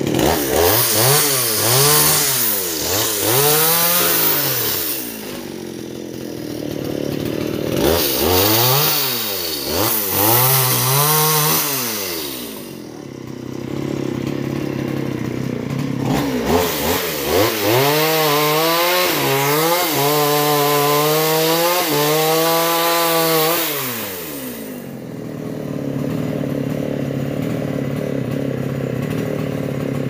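Two-stroke chainsaw revved up and down again and again in bursts of throttle, dropping back to a steady idle between them and for the last few seconds.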